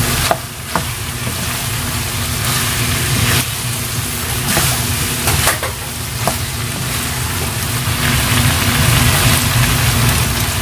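Pork empanada filling of pork, carrot, potato and green peas sizzling in a pan while it is stirred, with several sharp clicks of the spoon against the pan over a steady low hum.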